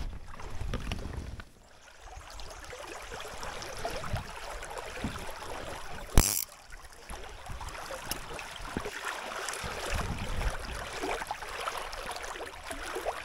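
Small creek running, a steady wash of flowing water with faint gurgles. A single sharp click or knock cuts through about six seconds in.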